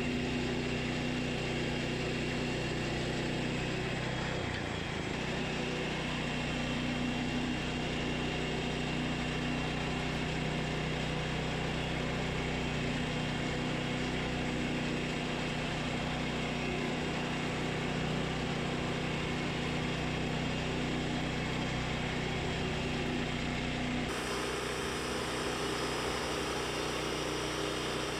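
Woodland Mills HM122 portable bandsaw mill's gasoline engine running steadily. Its tone and character change abruptly near the end.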